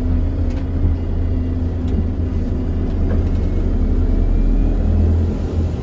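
Single-deck bus running on the road, heard from inside the passenger saloon: a steady low engine and road rumble, with a faint high-pitched whine rising near the end.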